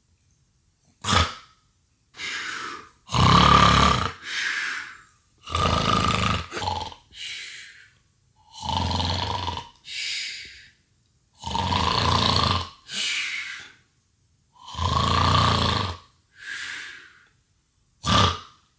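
A person fake-snoring as a prank: loud snores repeated about every three seconds, each a rasping inhale followed by a shorter, breathier exhale.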